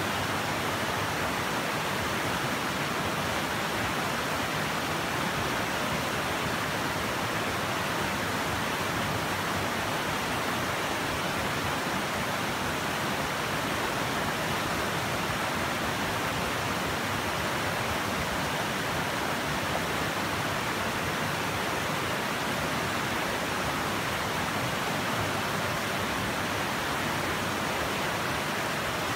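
Shallow, rocky river rushing over stones and through small rapids: a steady, unbroken rush of water.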